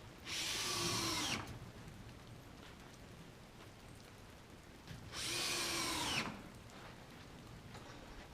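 Power drill running in two bursts of about a second each, one near the start and one about five seconds in, its whine dropping in pitch as each burst stops.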